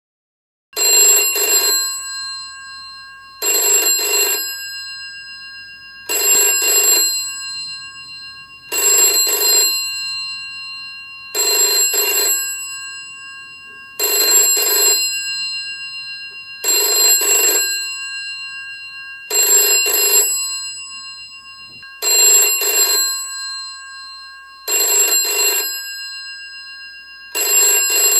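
Bell box of an antique candlestick dial telephone ringing: the clapper rattles against the metal gongs in bursts of about a second, eleven times, repeating every two and a half seconds or so. The bells keep ringing on and fade between bursts. The ringing starts about a second in.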